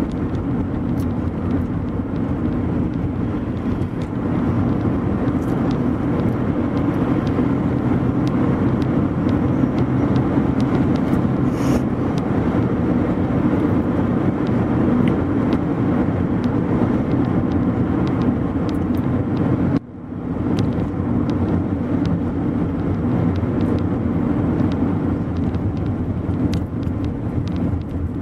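A car driving along a road: steady engine and tyre noise. The sound briefly cuts out about twenty seconds in.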